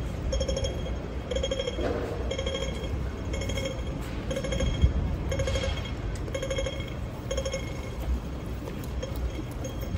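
Audible signal of a Hong Kong pedestrian crossing, a short burst of high-pitched beeps repeating about every three quarters of a second and growing faint in the last couple of seconds, over the low rumble of street traffic.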